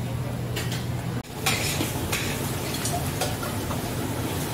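A metal ladle stirring and clinking in a large steel pan of simmering thick pork soup, over a steady low burner hum. About a second in it cuts off suddenly, and the rest is clatter of a steel pot and water being handled.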